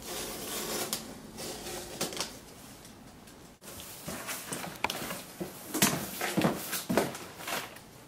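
Box cutter slicing through packing tape on a cardboard box, then the cardboard flaps being pulled open with rustling, scraping and several sharp knocks.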